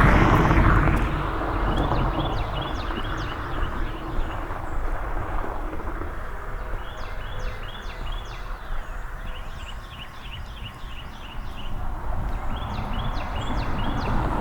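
A passing vehicle fades out in the first second or two, then a songbird sings three short bouts of quick repeated notes over low outdoor background noise.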